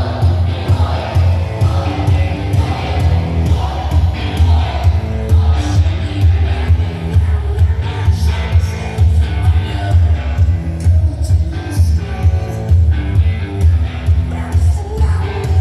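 Rock music with singing and guitar, played loud through a car audio system being tested, with a heavy, strong bass.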